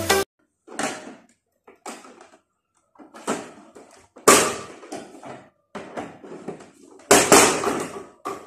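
Hollow plastic clatter and knocking from a Hitachi tower fan's housing as its long side grille panel is worked loose with a screwdriver and pried off: a string of about eight separate rattling knocks, the loudest about four and seven seconds in.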